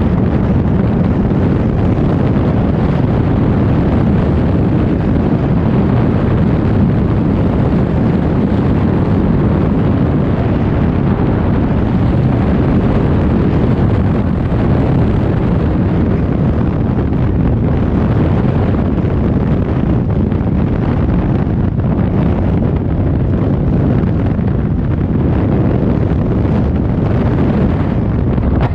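Freefall wind rushing over a skydiver's helmet-mounted camera microphone: a loud, steady buffeting wind noise, heaviest in the low rumble, that never lets up.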